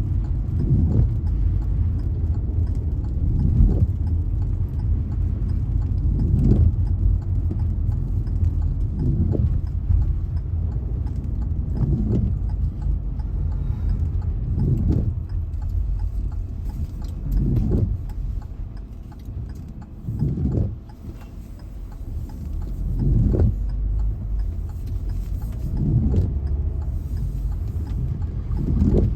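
Car running with a steady low rumble, and a dull knock that repeats evenly about every three seconds.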